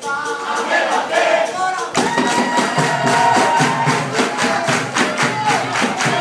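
Capoeira roda music: a group singing over hand claps and percussion, with pandeiro jingles and an atabaque drum. About two seconds in, the sound fills out and a steady beat of sharp strokes comes in under the singing.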